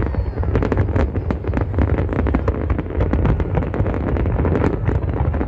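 Aerial fireworks display: many shells bursting at once in a rapid, continuous barrage of bangs and crackling over a steady low rumble.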